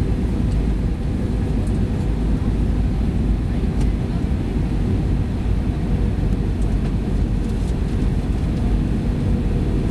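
Deep, steady roar of the engines and rushing air inside the cabin of an Airbus A318 airliner on approach for landing.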